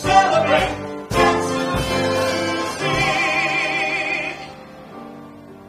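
Live band of piano, bass and percussion playing with singing: sharp drum hits at the start and about a second in, a voice holding a high, wavering note from about three seconds in, then the music drops to a soft held chord near the end.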